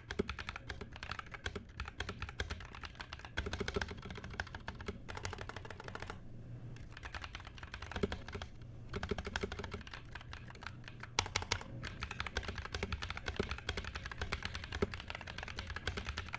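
Typing sound test on a Rexus Heroic KX3 68-key mechanical keyboard with Content Red linear switches: fast, continuous keystrokes clacking, with a couple of brief lulls midway.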